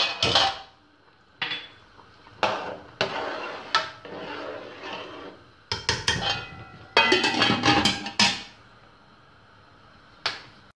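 A metal spatula clanking and scraping against a large aluminium cooking pot as rice is stirred, then the aluminium lid going on with metal knocks. Several sharp clanks come in clusters, with a single clink near the end.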